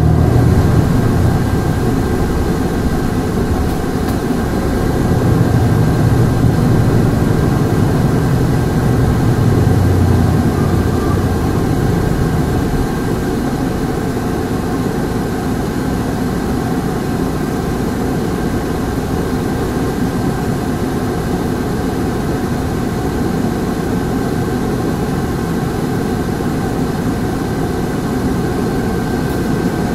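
Hankyu Bus No. 383, a non-step diesel city bus, running, heard on board. The low engine rumble is heavier for about the first twelve seconds, then settles lower and steadier, over a steady high whine.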